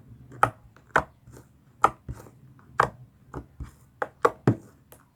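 Clear slime being squeezed and kneaded by hand, giving a string of sharp pops and clicks at uneven spacing, about two or three a second, as trapped air bubbles burst; the maker suspects the bubbly slime is overactivated.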